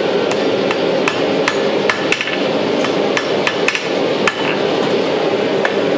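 Blacksmith's hand hammer striking red-hot iron held in tongs on an anvil, a steady rhythm of about two to three blows a second, over a steady rushing background noise.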